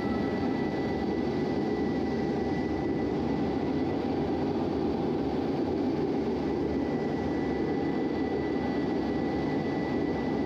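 Steady jet engine and airflow noise inside a fighter's cockpit, with a thin steady high whine over it.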